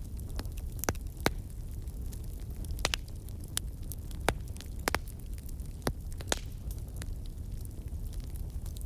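Campfire burning: wood crackling with sharp, irregular pops over a steady low rumble of the flames.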